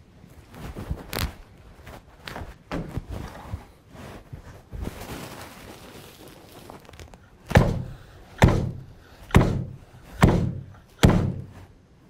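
Vevor industrial vegetable chopper (a heavy metal press with a grid of blades) being slammed down five times in a row, about once a second, the push head thudding onto a bell pepper and squashing it into the blades. Lighter knocks and handling come before the slams.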